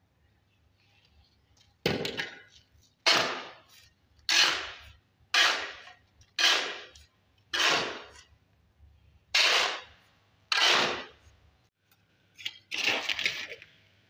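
Steel shovel scraping across a concrete floor as it scoops into a sand-and-cement pile to mix mortar: eight sharp strokes about a second apart, then a longer, rougher one near the end.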